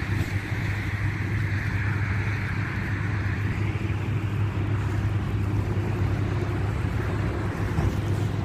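Wind rumbling steadily on a phone's microphone, with a hiss that eases off a few seconds in.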